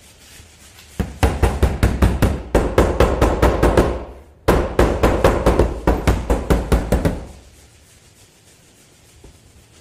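Rapid knocking on the sheet metal of a dented car door, about five knocks a second, in two runs of about three seconds with a short break between.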